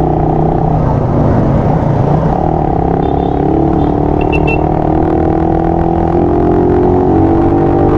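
Motorcycle engine running while riding, its note sinking and rising slightly with speed, over heavy wind rumble, heard from a microphone inside the rider's helmet.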